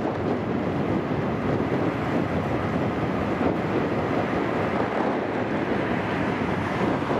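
Steady wind buffeting the microphone, an even rush with no distinct events.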